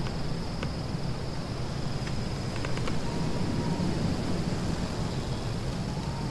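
Nature ambience: a steady, high, insect-like trill over a low rumbling noise bed, with a few faint ticks.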